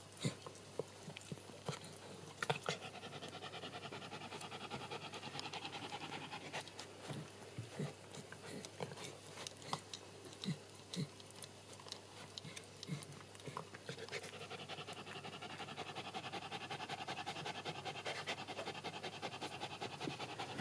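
Shetland sheepdog bitch panting rapidly while whelping, in two long spells with a lull in the middle, and scattered sharp clicks.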